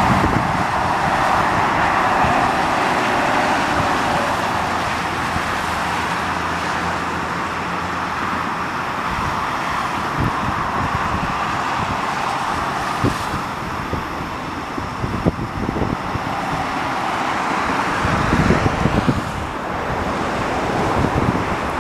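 Steady rushing road noise of a car driving or passing traffic, with gusts of wind buffeting the microphone in the last few seconds.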